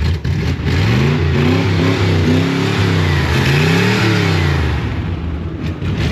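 Chevy 283 small-block V8 in a 1955 Willys Jeep running just after a hard cold start, revved up twice, its pitch climbing and falling back each time.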